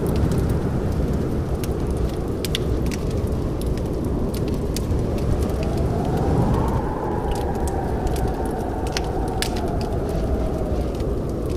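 Wood fire burning in a fireplace: a steady low rumble of flames with frequent sharp crackles and pops. A faint whistling tone rises about five seconds in and slowly falls away near the end.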